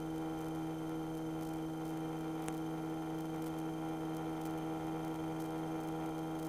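Faint, steady electrical hum on a light aircraft's headset intercom feed while the voice-activated microphones are closed, made of a couple of steady low tones with overtones.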